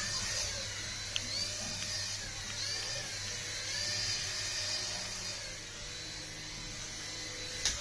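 Small electric motor of a remote-control toy whirring at high speed, its pitch rising and falling in slow swells. It cuts off with a click near the end.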